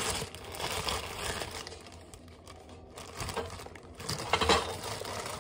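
Plastic tortilla bag crinkling and rustling as it is handled and opened to take out a tortilla, in irregular bursts.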